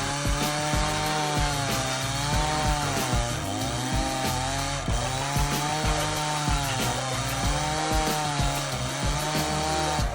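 A chainsaw driving a stump-grinding attachment runs at high revs as the cutter grinds into a stump. Its pitch sags and recovers every second or two as the load comes and goes. Background music with a steady beat plays underneath.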